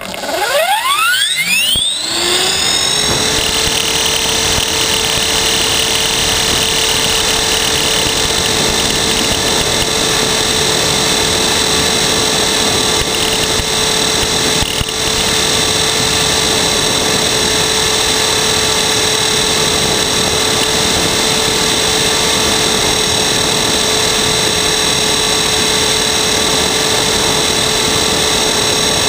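T-Rex 450-clone electric RC helicopter's motor and rotor spooling up from rest in a rising whine over the first two or three seconds, then running at a steady pitch in flight.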